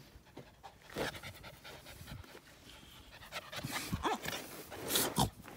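Akita Inu puppy panting in quick breaths, with two short, louder sounds about four and five seconds in.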